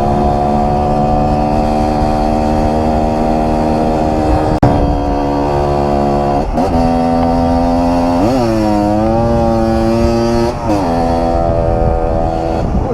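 Kawasaki KMX 125 two-stroke single-cylinder engine running at a steady pitch. It breaks off sharply for a moment about four and a half seconds in, then rises and falls in pitch twice quickly in the second half.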